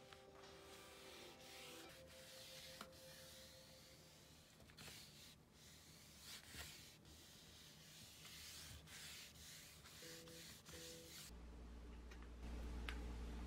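Faint scratching and rubbing as a cat paws at a small toy on a textured rug, with quiet background music in places. A steady low hum comes in near the end.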